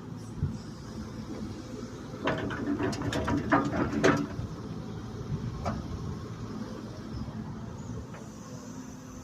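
Excavator engine running steadily, with a run of metal clanks and scrapes from the bucket or tracks about two to four seconds in.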